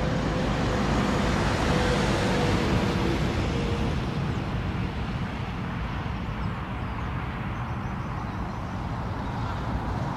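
Steady rumble of an Airbus A350 airliner on final approach, mixed with road traffic noise; loudest about two seconds in, then easing off.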